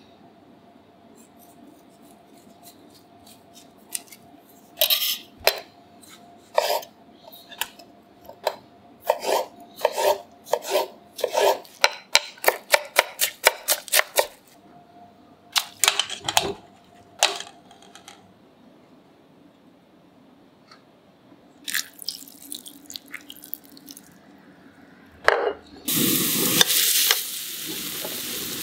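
Kitchen knife chopping on a wooden cutting board, irregular quick strikes, as onion is diced. Near the end, pork belly goes into hot oil in a frying pan and sizzles loudly, then settles to a steady sizzle.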